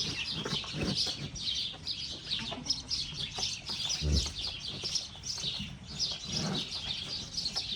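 Many small birds chirping in rapid, overlapping calls without a break, with a few soft low knocks underneath.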